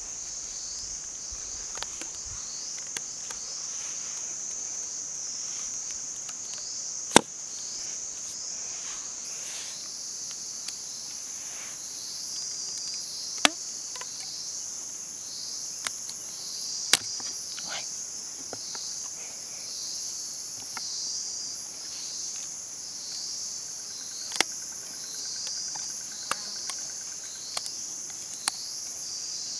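Steady, pulsing high-pitched chorus of insects, with a second, higher buzzing tone joining about a third of the way through. Sharp clicks and knocks of bamboo sticks being handled and fitted together cut through it now and then, the loudest about a quarter of the way in.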